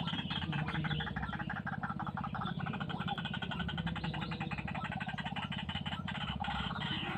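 White-breasted waterhen calling: a rapid, unbroken run of croaking notes repeated many times a second.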